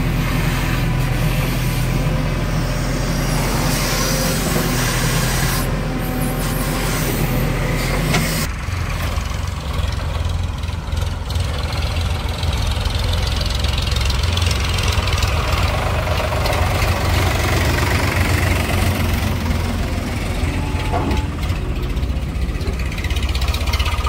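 The diesel engine of a JCB 3DX backhoe loader running steadily while it digs and loads mud. About eight seconds in the sound changes abruptly to a deeper, rougher diesel running, the backhoe and a farm tractor heard together.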